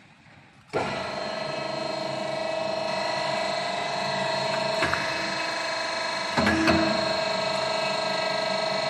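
A busbar machine's hydraulic pump motor starts abruptly about a second in and runs steadily with a whine, as the shearing station's ram moves to its newly set height after the foot switch is pressed. Two short clunks come near the middle.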